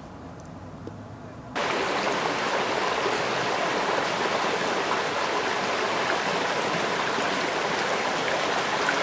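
Faint, quiet background, then about a second and a half in a sudden cut to a loud, steady rushing like running water, such as a stream or waterfall, which holds even to the end.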